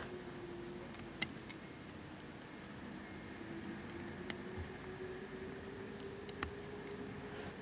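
Small sharp clicks of steel tweezer tips against tiny clear plastic model aircraft parts, a few in all, the loudest about a second in, over a steady low hum.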